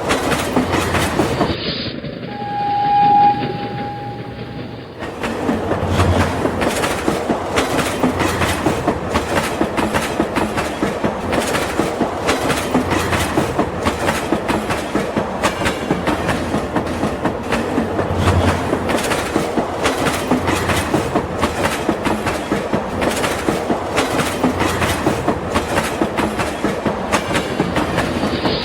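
Toy train running along its track with a rapid, even clicking rattle. About two seconds in, a single steady horn or whistle tone sounds for a couple of seconds.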